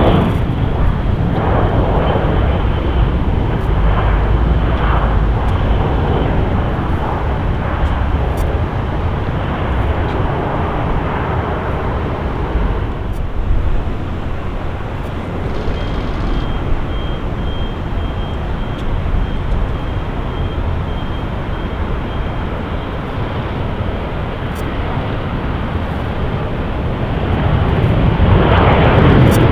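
Jet airliner engines running with a steady rumble and a faint thin high whine, loudest at the start and swelling again near the end.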